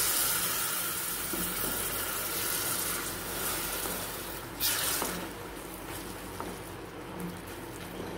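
Tamarind water sizzling and bubbling in the hot oil and masala of a kadai as a wooden spatula stirs it, the sizzle dying down as the liquid settles. A short sharp sound stands out about four and a half seconds in.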